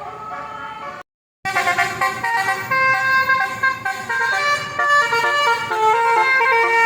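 Basuri 'telolet' multi-tone vehicle horn playing a tune: held notes that step from one pitch to the next. It drops out for a moment about a second in, then comes back louder.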